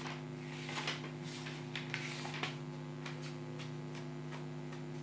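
Steady low electrical hum, with a few short, soft scratchy noises between about one and two and a half seconds in.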